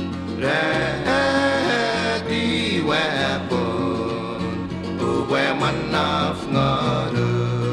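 Background music: a song with a voice singing held, gliding notes over guitar and a steady bass line. The voice comes in about half a second in.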